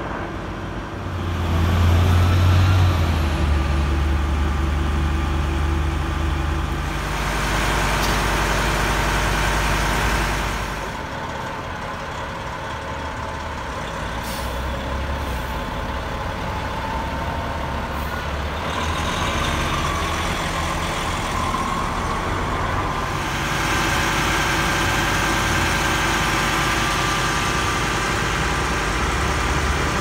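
Fire engine's diesel engine running with a heavy low drone, loudest for the first ten seconds or so, then a steadier, quieter engine and traffic sound as the truck moves through traffic.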